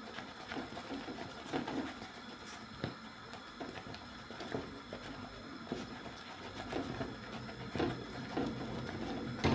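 Wooden spatula stirring and folding thick plantain fufu dough in an aluminium pot: quiet, irregular soft knocks and scrapes against the pot.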